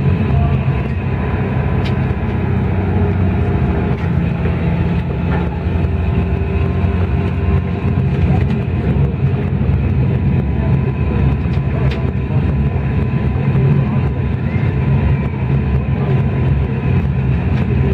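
Train simulator's locomotive sound effects playing in the cab: a steady low running rumble with a faint steady higher tone, and a few light clicks.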